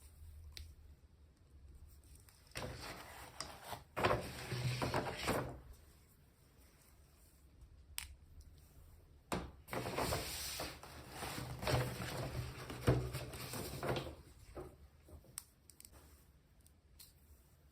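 Toy packaging being handled and opened by hand: two stretches of rustling and scraping, with a few sharp clicks in between.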